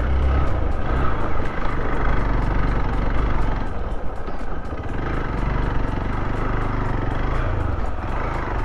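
Motorcycle engine running steadily, mixed with rough wind noise on the microphone.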